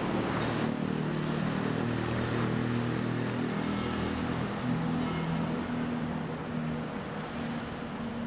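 Steady low drone of several engines, with pitches that shift slowly over a continuous background rumble, typical of heavy machinery running at a construction site.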